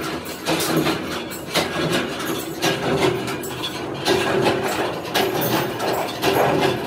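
Thin metal sheet being scored by hand with a long pointed cutting bar dragged along it: irregular scraping and clicking as the sheet flexes and rattles.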